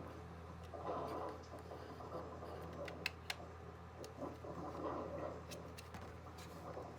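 Quiet handling of a small weather radio, with a pair of sharp clicks about three seconds in and a few lighter ones later, over a steady low hum.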